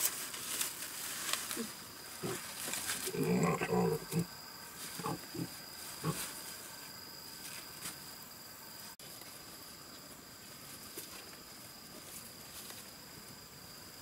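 A piglet grunting: one longer grunt about three seconds in, then a few short ones. Large leaves rustle early on, over a steady high insect drone.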